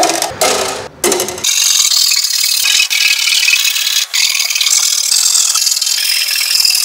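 Continuous high, hissy metallic rasping and ratcheting from hand tools working the metal drywall-framing studs, as the excess is marked and trimmed off the profiles. It starts about a second and a half in and breaks off briefly twice.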